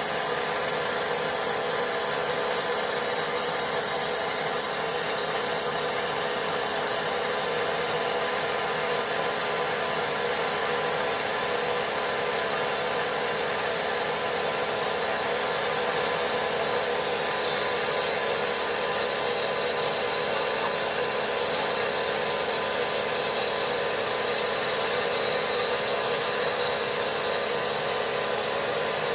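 Vapor blasting gun spraying continuously inside a blast cabinet, a steady hiss of air and abrasive cleaning dirty motorcycle engine parts.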